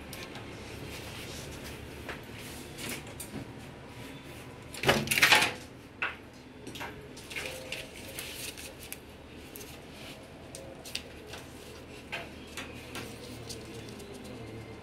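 Hand work on a TV's backlight: scattered clicks and light knocks of small parts and tools being handled, with one louder scraping rattle about five seconds in.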